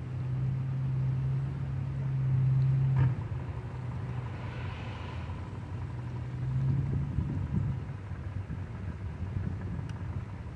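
Outboard motor of a pontoon boat running at low speed while maneuvering, a steady low hum. The hum drops suddenly with a click about three seconds in and swells again around six to seven seconds.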